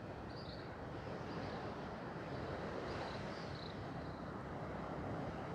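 Steady background noise with no clear source, plus a few faint, short high chirps about half a second in and around three seconds in.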